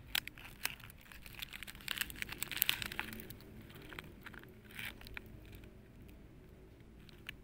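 Thin plastic baglog bags crinkling and crackling as hands handle them and pull a young oyster mushroom cluster from the bag's mouth. The crackles come thick for the first three seconds, then thin out.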